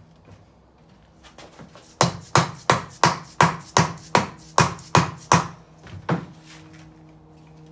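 Mallet striking the aluminium case of a T5 manual transmission to knock the tail housing loose: about a dozen sharp blows at roughly three a second, starting about two seconds in and stopping shortly before the end.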